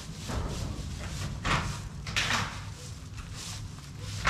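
A few short scraping and knocking noises as a large wooden brooder box is shifted and dragged, the last a sharp knock near the end, over a steady low rumble.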